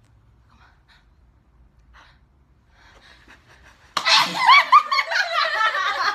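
A person sneezing suddenly about four seconds in, followed by a burst of laughing.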